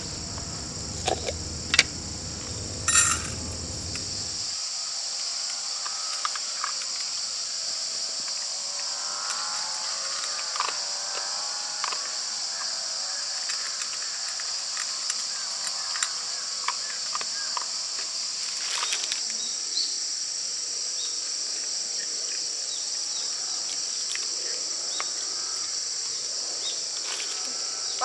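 Autumn insects chirring in a steady high chorus, with a few sharp clicks in the first few seconds.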